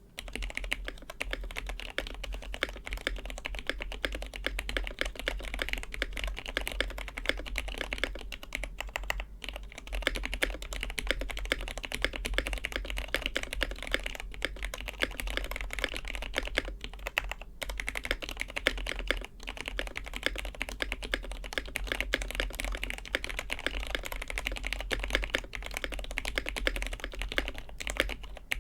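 Fast, continuous typing on a custom mechanical keyboard: an aluminium-plate, gasket-mounted Besides Studios M-One with lubed linear Cherry MX Hyperglide Black switches and PBT keycaps, with a dense stream of key clacks pausing briefly now and then.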